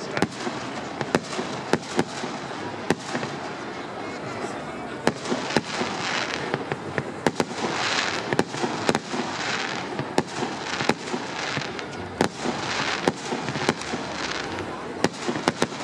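Aerial fireworks going off: a steady run of sharp bangs from shells bursting, with several stretches of hissing noise through the middle and later part.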